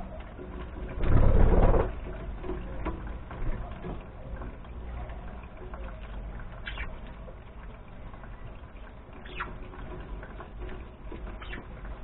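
Budgerigars feeding on dandelion leaves, with faint pecking and rustling of the leaves and a few short chirps. About a second in comes a brief loud flutter of wings as a budgie flies in and lands.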